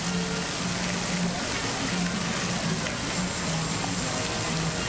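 Fountain water splashing steadily into a lake, a constant rushing hiss with no breaks.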